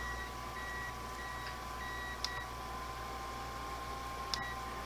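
A cooking appliance beeping: short high beeps about every half second over a steady electrical hum, stopping about two and a half seconds in. A couple of light clicks follow.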